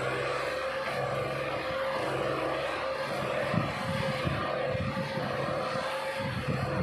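Farm tractor's diesel engine running under load while stuck in soft mud: a steady drone with uneven low rumbling that picks up from about three seconds in.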